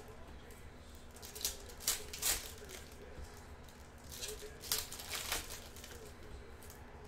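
Trading cards and a foil pack wrapper being handled and sorted: short rustles, crinkles and card-stock scrapes in two clusters, around two seconds in and again around four to five seconds in, over a faint steady hum.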